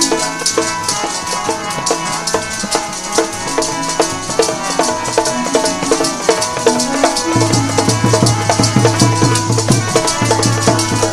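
Music from a Sikh religious diwan: quick, dense percussion strokes over held melodic notes, with deep bass notes coming in about seven seconds in.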